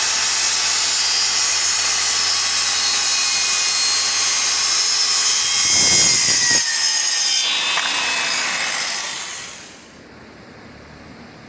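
Makita circular saw running and cutting, a loud steady whine with a hiss of the blade in the cut, with a couple of low knocks about six seconds in. Its sound then dies away over about two seconds as the saw winds down.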